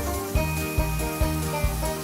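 Background music with a steady beat, about two to three beats a second, over sustained notes.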